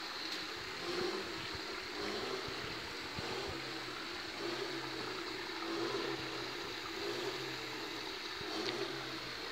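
Steady rush and trickle of running water from a garden water feature, with a low hum that swells and fades about once a second.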